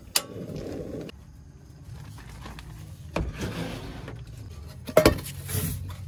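Clicks and knocks from a portable butane camp stove being handled and set on a table: a sharp click near the start, another knock about three seconds in, and the loudest knock about five seconds in, each followed by a brief rustle or hiss.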